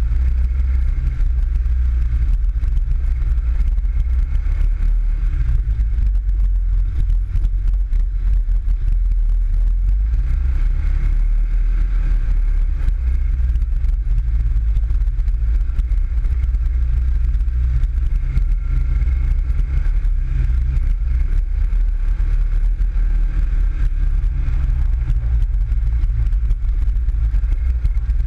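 PGO 500i off-road buggy's engine running steadily as it climbs a trail, with its pitch rising and easing slightly.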